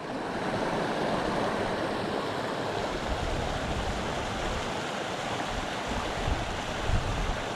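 Small mountain stream rushing steadily, with gusts of wind buffeting the microphone.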